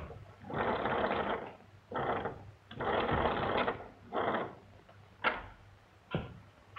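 Wall-mounted magneto crank telephone being hand-cranked to ring the operator: a rattling whir of the crank and bells in several bursts, the longest two about a second each.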